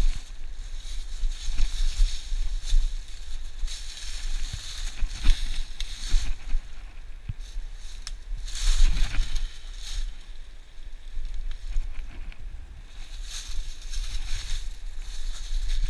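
Footsteps crunching through dry fallen leaves and twigs, with wind buffeting the microphone as a low rumble.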